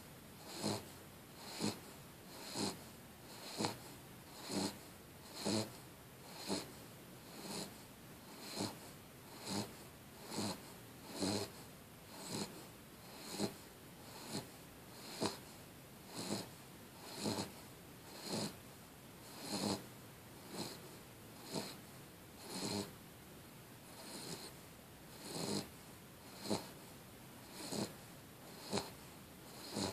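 Steady snoring, one short snore about every second, evenly paced.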